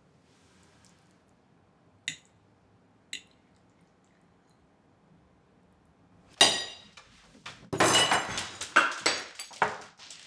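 Two light clinks of tableware, then a loud knock about six seconds in and a couple of seconds of scraping and clattering as a wooden dining chair is pushed back from the table.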